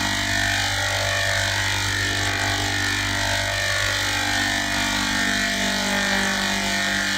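A steady, unchanging machine-like hum made of several held tones over a hiss, with no breaks or changes in level.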